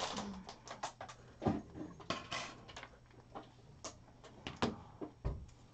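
Irregular clicks, taps and knocks of things being handled and set down near open studio microphones, with a couple of duller thumps about one and a half and five seconds in.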